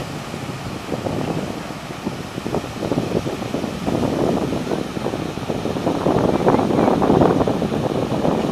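Pumped water rushing and churning as it gushes out of the lift-irrigation delivery pipe outlets into the channel. It grows louder from about halfway on.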